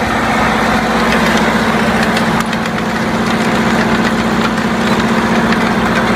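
DT-75 crawler tractor's diesel engine running steadily at a low, even speed, with faint clicks over it.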